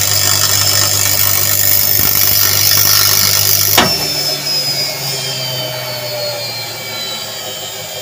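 Washing machine's brushed drive motor running at speed with one worn carbon brush sparking at the commutator. About four seconds in it is switched off with a click and winds down, its whine falling in pitch.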